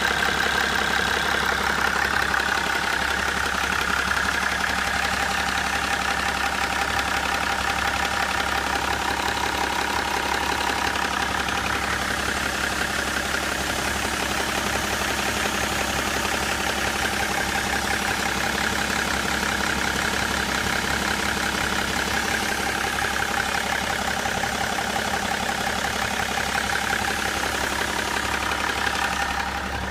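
BMW 535d's 3.0-litre twin-turbo straight-six diesel idling steadily, with a fast, even knocking from the front of the engine that is loudest near the intercooler; the owner does not know its cause.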